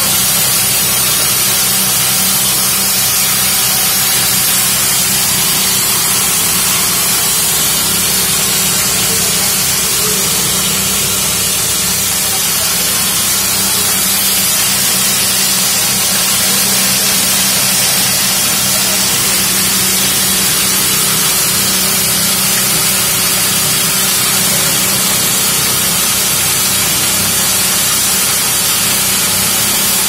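Hammer-mill grinder running at full speed while grinding maize kernels into feed meal, with its hammers spinning at about 3000 rpm. A loud, continuous hiss of grain being shattered sits over a steady machine hum.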